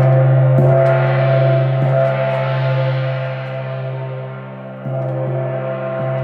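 Moon gong ringing on with a dense wash of overtones that swells and shimmers in the upper range, kept going by soft restrikes a few times, the clearest about five seconds in.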